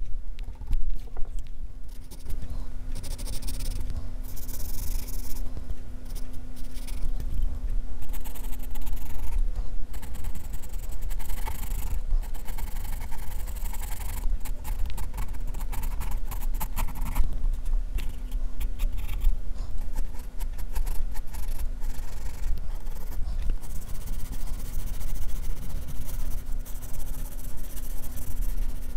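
HB graphite pencil scratching across drawing paper in many short, irregular strokes, over a steady low rumble and hum.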